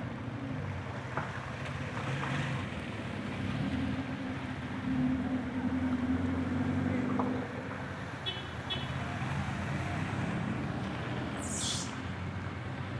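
Cars driving slowly through a flooded street, their engines running over steady traffic noise, loudest as a car passes close midway. Two short high beeps come about eight seconds in, and a brief hiss near the end.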